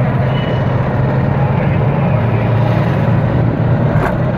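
Steady low drone of a moving golf cart's motor with rolling and wind noise, and a brief click about four seconds in.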